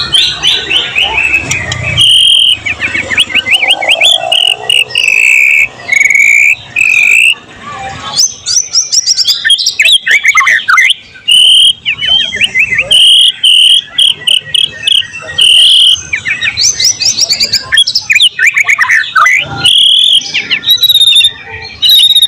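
White-rumped shama (murai batu) singing loudly and continuously: a varied song of fast runs of downward-sweeping notes, held whistles and trills, which the owner says is filled with phrases imitated from other birds such as canaries, lovebirds and cililin.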